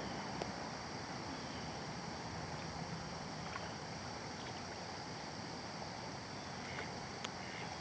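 Steady outdoor hiss, like moving water or wind, with a few faint scattered clicks.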